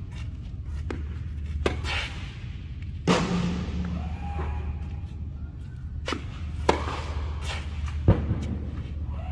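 Tennis balls being hit with slice by a Yonex Regna 98 racket and bouncing on an indoor court: sharp pops a few seconds apart, echoing in the large hall, over a steady low hum.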